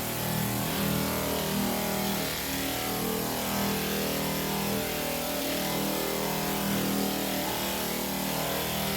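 Power board sander running steadily, sanding body filler on the car's quarter panels.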